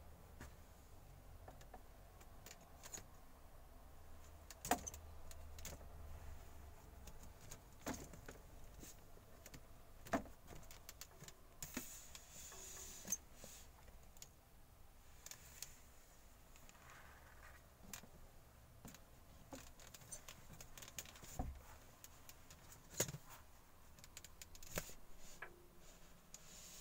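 Sparse light clicks and taps of small objects being handled, a dozen or so at uneven intervals, with a short rustle about twelve seconds in.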